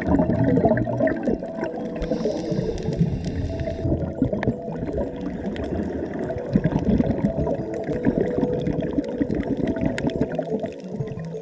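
Underwater gurgling and bubbling, a dense crackling water noise heard from below the surface, steady throughout.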